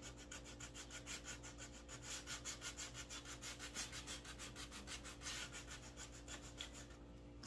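Hand sanding with a small finger sander rubbed quickly back and forth over painted edges of a sign board, softening and distressing the paint: a soft, even, rhythmic scratching, several strokes a second.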